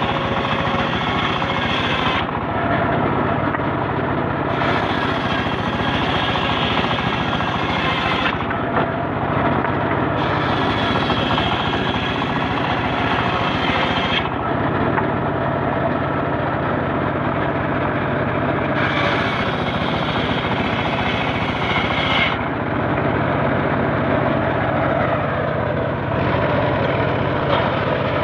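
Homemade circular sawmill ripping mahogany boards: the large blade cuts through the wood in four passes of a few seconds each, and the drive motor runs steadily between cuts.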